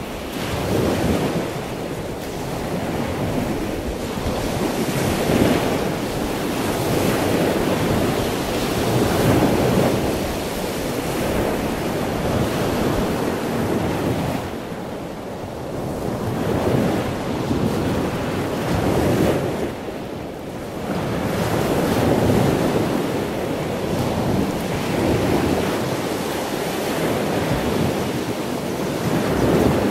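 Ocean surf washing against the shore, rising and falling every few seconds, with wind rumbling on the microphone.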